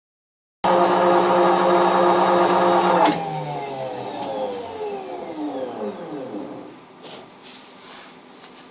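Milling machine running steadily, then switched off about three seconds in, its motor and spindle whine falling in pitch as they coast down to a stop.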